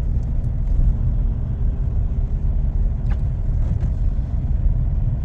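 Steady low rumble of a vehicle driving: engine and road noise heard from inside the cab.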